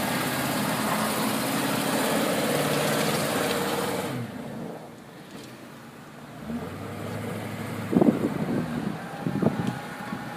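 Motor vehicle engine running under load for about four seconds, then cutting off sharply. A lower engine hum comes back with a few sharp knocks near the end.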